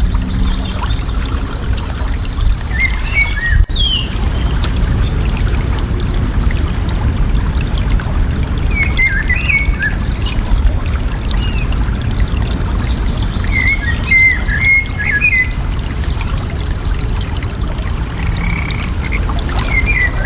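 Water running and splashing steadily, with a strong low rush. A songbird calls over it in short chirping phrases, three or four times.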